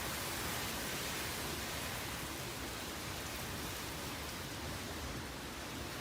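Steady hiss of heavy rain falling, an even wash of noise with no distinct drops or gusts.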